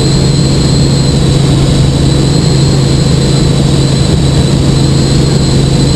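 Helicopter in level flight heard from inside the cabin: a loud, steady drone of engine and rotors with a thin, constant high whine above it.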